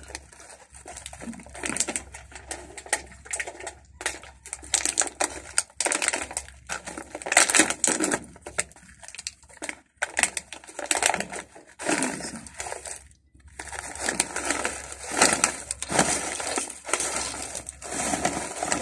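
Metallised foil snack bag crinkling and crackling as it is handled, torn open and shaken to pour out crisp potato snack chips, with crunching of the chips.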